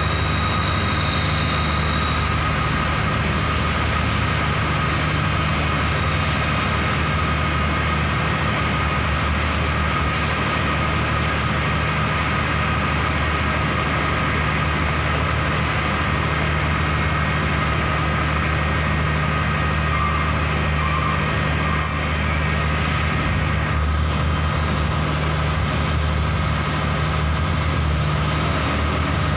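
Heavy diesel engines running steadily: a wheel loader's engine idling close by while a Hino bulk cement tanker truck moves slowly past behind it. A few brief sharp sounds in the first ten seconds.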